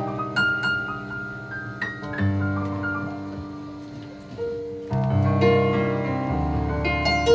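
Live band music led by a keyboard: sustained chords with a few single high notes that grow quieter, then the band comes back in fuller and louder, with a strong bass line, about five seconds in.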